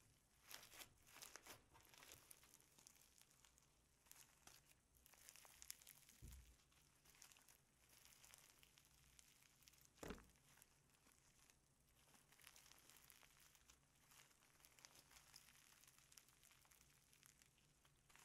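Faint crackling and squishing of slime packed with foam beads as it is stretched, folded and pressed by hand, with a soft thud about ten seconds in.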